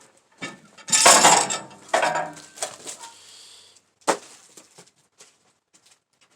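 Clattering of wood and gear being handled at a sawmill, with a loud jumble of knocks about a second in, more around two seconds, and one sharp knock about four seconds in.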